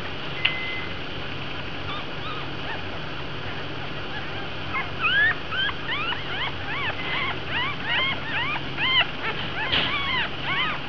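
Newborn puppies crying in short, high-pitched squeaks and whimpers, coming quickly one after another from about halfway through, over a faint steady hum.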